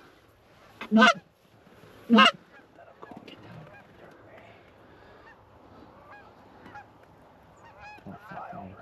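Two loud, short honks from a goose call blown close by, about a second apart, calling to an approaching flock; faint honking of the geese themselves carries through the rest.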